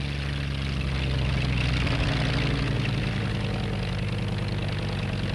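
Helicopter engine and rotor running steadily, a low drone that swells over the first second or so.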